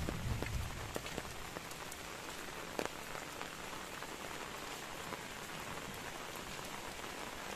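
Steady rain falling, an even hiss with scattered individual drops ticking close by. A low rumble fades out in the first second.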